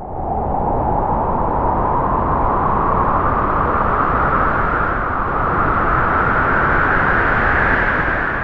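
Spooky sound effect: a long rushing noise whose pitch rises slowly and steadily.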